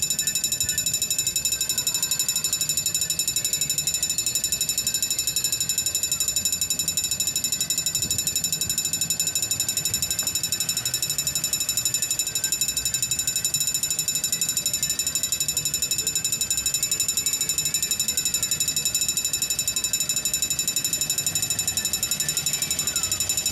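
Level-crossing warning bell ringing rapidly and steadily, its fast strikes repeating without a break while the crossing is activated for an approaching train.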